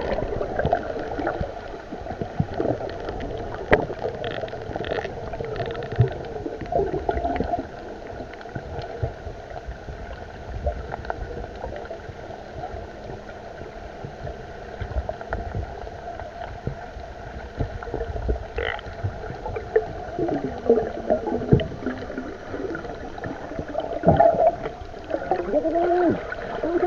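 Underwater sound heard through a submerged camera: a muffled wash of water with scattered clicks and knocks. Wavering, gliding tones come in over the last several seconds.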